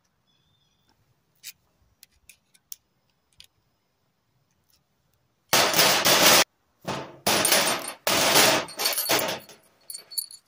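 Steel mounting brackets and pliers clattering on the work surface: a few light clicks, then from about halfway several loud rattling bursts, each under a second long.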